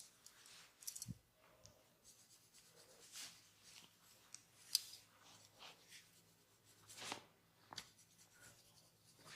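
Quiet, intermittent rubbing and scratching of hands on skin and hair during a massage, with a few short sharp clicks, the loudest about halfway through.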